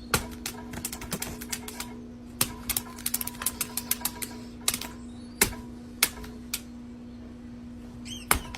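Sharp clicks and taps in irregular clusters, some quick runs and some single, louder ones, over a steady low hum.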